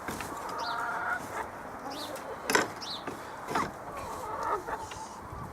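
Domestic chickens clucking: a drawn-out call about half a second in, then several short, sharp clucks.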